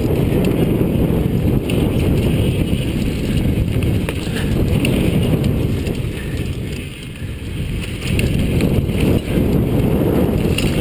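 Chumba VF2 mountain bike riding fast downhill on a dirt trail: a loud rumble of wind on the microphone and tyre noise, with the bike rattling and clicking over bumps. The rumble eases briefly about seven seconds in.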